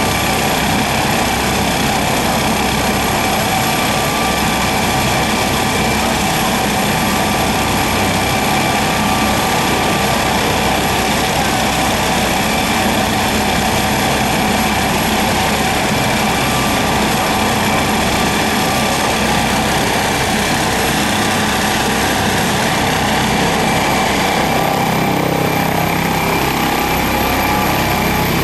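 Air ambulance helicopter, an MD 902 Explorer, running on the ground with its main rotor turning: a steady turbine whine over rotor noise. Near the end the whine rises slightly in pitch as it powers up for take-off.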